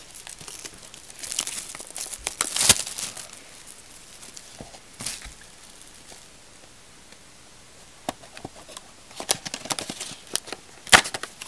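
Wrapping crinkling and tearing as a cardboard trading-card box is opened by hand, in irregular bursts with a sharp snap near the end.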